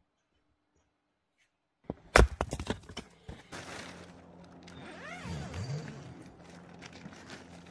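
Split firewood logs knocking and clattering together as they are handled and set down. A sharp knock about two seconds in is the loudest sound, followed by lighter clicks and rustling, with a brief creaking glide near the middle.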